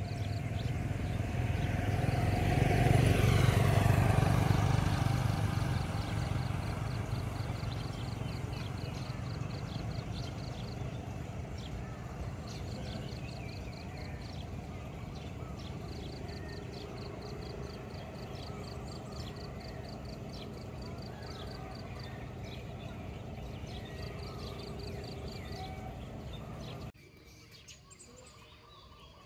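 A motor vehicle passes close by on the road, swelling to its loudest about three seconds in and fading with a falling pitch, followed by lighter traffic noise with a rhythmic high chirping throughout. The sound drops much quieter near the end.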